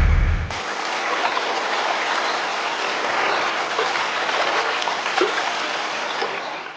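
A low rumble cuts off abruptly about half a second in, giving way to a steady rush of running water with light splashing.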